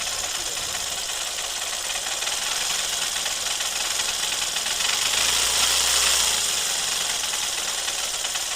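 Shine motorcycle's single-cylinder engine running, heard close up, with a crank-like knocking noise that is not as healthy as it should be. It swells briefly a little past the middle.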